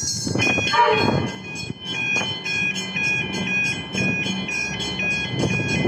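Railway level crossing warning bell ringing in even, repeated dings, about two to three a second, over the low running noise of an approaching suburban electric train. A short falling tone sounds about a second in.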